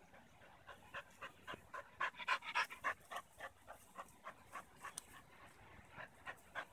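A dog panting in quick, even breaths, about three to four a second, out of breath from a game of tug-of-war.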